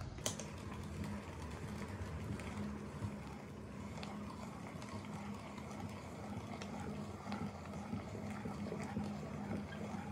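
Hand-cranked metal meat grinder being turned, its auger squeezing soft ice cream through the die plate, with scattered small clicks and one sharper click just after the start, over a steady low hum.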